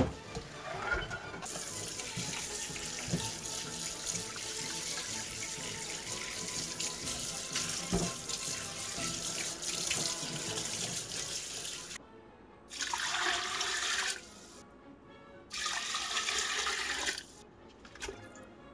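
Water running from a tap into a sink in a long steady stream that stops about twelve seconds in, followed by two shorter runs of a second or two each.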